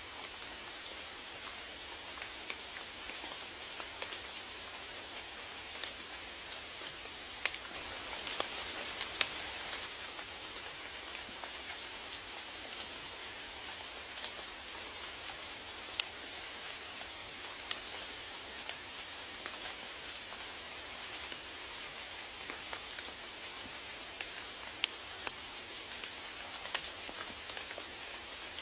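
Steady rain with individual raindrops ticking and pattering on a surface, a few louder drops standing out now and then.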